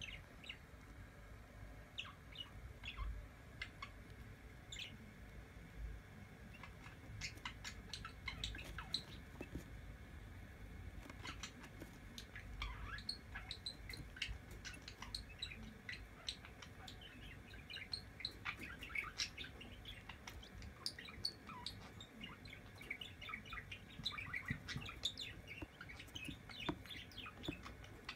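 Two-day-old quail chick peeping, with many short high chirps coming on and off, along with light clicking taps as it pecks at crumbled feed on a plastic lid.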